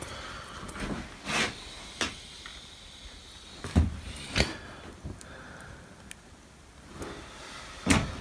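Metal gears and parts of a chain hoist's gearbox clinking and knocking as they are handled, about six separate knocks with quiet between them, the loudest near the middle and near the end.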